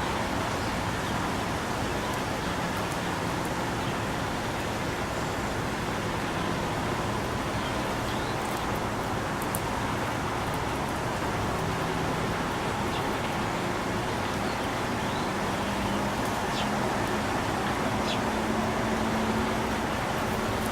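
Steady background traffic hum, with a few faint, short bird chirps now and then.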